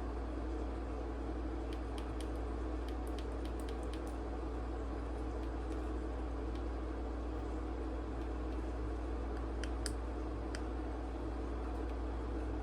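Steady low room hum with a few faint, sharp clicks of a flashlight being handled and its switch tried.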